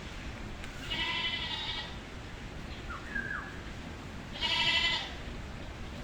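Two animal calls, each under a second long, the second louder, with a brief faint chirp between them, over a steady background hiss.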